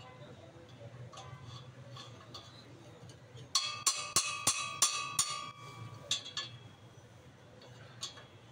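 Metal wrench clinking and clanking against the bolt and bracket of a car's exhaust silencer mount while the nut is fitted: a quick run of about eight sharp, ringing metal strikes in the middle, with a few faint ticks around it.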